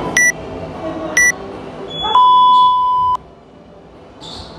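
Workout interval timer counting down to the start: two short high beeps a second apart, then a long, lower beep of about a second that signals go.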